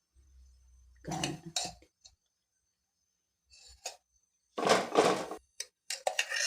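Metal pots and kitchen utensils clattering as they are handled: a couple of knocks about a second in, a longer, louder clatter near five seconds, then a few quick clinks.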